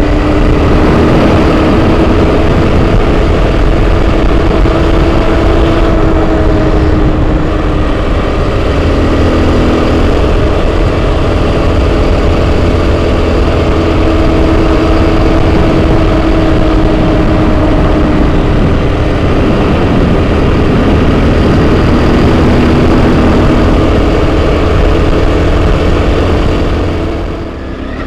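Enduro motorcycle engine running steadily under throttle while riding, its pitch shifting slightly now and then; the engine eases off near the end.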